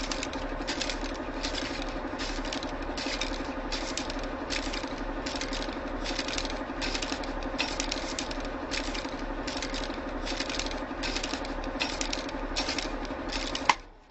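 Typewriter keys clacking in a steady run of about two strikes a second, over a constant low hum, cutting off just before the end.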